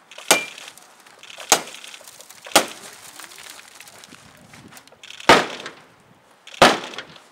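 Five heavy blows smashing into a wrecked car's metal body and broken windshield glass, each a sharp crash with a brief crunching ring. The first three come about a second apart, then there is a pause of over two seconds before the last two.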